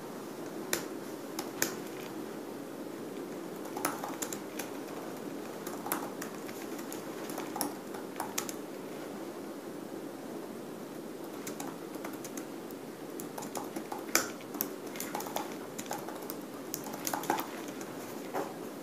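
Irregular keystrokes and clicks on a laptop keyboard, some single and some in quick little runs, over steady background noise.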